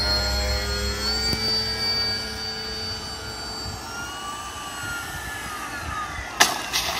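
Electric motor and propeller of a radio-controlled model seaplane whining in flight, the pitch steady at first, then fainter and gliding down as it passes. A sharp click comes near the end.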